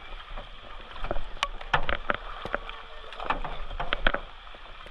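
Kayak paddling on a river: paddle blades splashing in the water, with irregular sharp knocks, a dozen or so scattered unevenly.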